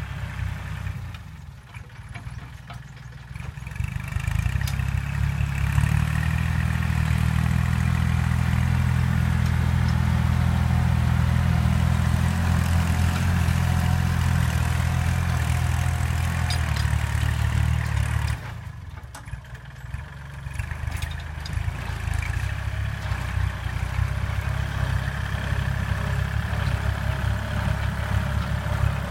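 Kubota L3608 farm tractor's diesel engine running. It grows louder a few seconds in and holds a steady drone, drops off suddenly a little past the middle, then builds back up.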